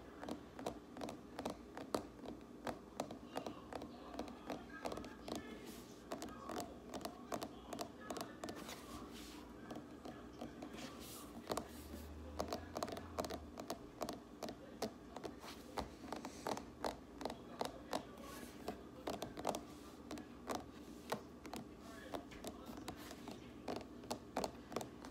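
Fast, uneven finger tapping: sharp clicks several times a second, coming in loose bursts.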